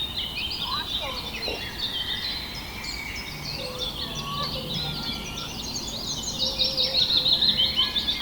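Several birds chirping and singing at once, their calls overlapping, with a louder, fast repeated trill near the end.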